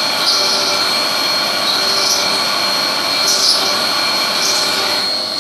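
Haas Minimill CNC end-milling a 16 mm mild steel plate under flood coolant. A steady high tone sits over a constant hiss of cutting and coolant spray, with a few brief, brighter surges.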